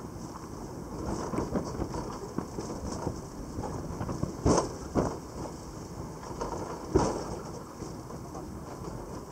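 Gelmerbahn funicular car rattling and creaking as it runs down its steep track, a steady rumble full of small knocks, with louder jolts about four and a half, five and seven seconds in.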